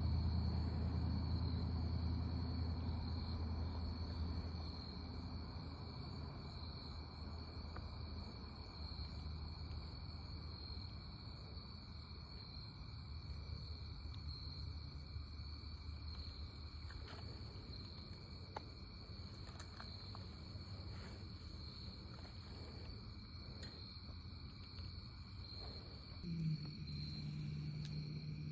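Crickets chirping in a steady night chorus. A low rumble fades away over the first few seconds, and a low steady hum starts near the end.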